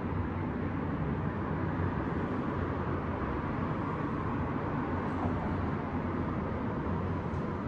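Steady low rumble of distant city traffic, an even wash with no single vehicle standing out.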